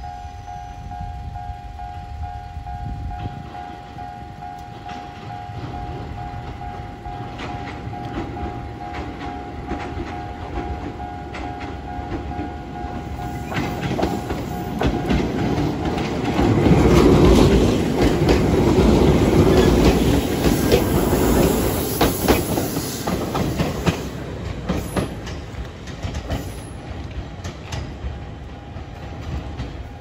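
Level-crossing warning bell ringing in a steady pulse while a Toyama Chiho Railway 10030 series two-car electric train approaches and runs over the crossing. Its wheels clack over the rail joints, and the rumble and clacking are loudest a little past halfway, then fade as the train moves off.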